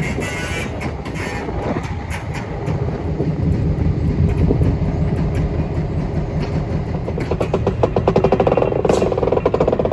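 Heavy vehicle engine running with a steady low rumble while rail equipment is moved, getting louder, with a rapid rhythmic engine beat coming in over the last few seconds.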